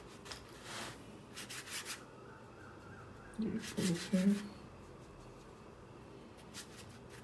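Short rubbing and scraping strokes on thick handmade watercolour paper, several in a row, with a brief murmur of a voice about halfway through.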